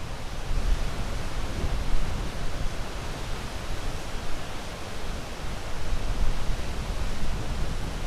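Sea waves washing continuously as a steady rushing noise with a deep rumble, swelling and easing slightly in loudness.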